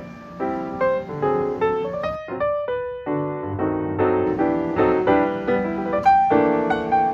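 Background piano music: a light melody of struck piano notes with chords, pausing briefly around two seconds in.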